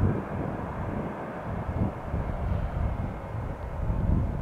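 Airbus A340 jet airliner's engines rumbling as it comes in to land, a low, uneven rumble.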